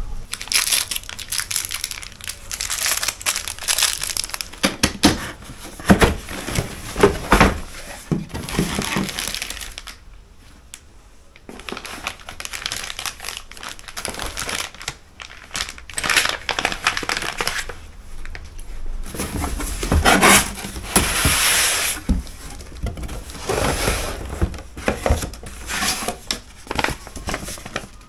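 Plastic packaging bags crinkling and rustling as parts are lifted out of a cardboard box and unwrapped, in irregular bursts with a short lull about ten seconds in.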